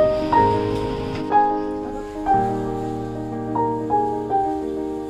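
Background music: a slow melody, with a new note struck about once a second over held chords.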